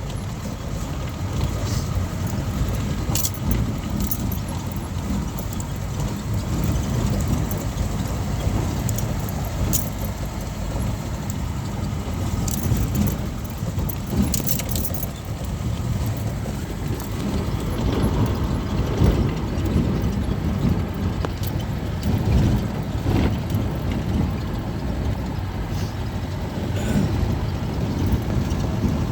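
A vehicle driving on a rough dirt track: a steady low rumble of engine and road noise with frequent rattles and knocks throughout.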